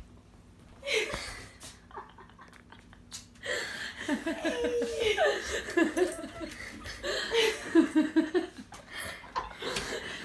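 Laughter in short, excited bursts: a brief outburst about a second in, then steadier laughing from about three and a half seconds in.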